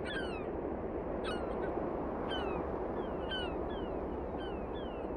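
Wild birds calling: short whistled notes that fall in pitch, repeated about once or twice a second, over a steady low rushing background.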